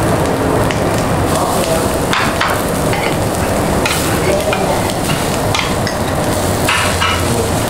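Pork pieces sizzling steadily on a perforated stainless-steel Korean BBQ grill plate over charcoal. Metal tongs click against the plate a few times as the meat is turned.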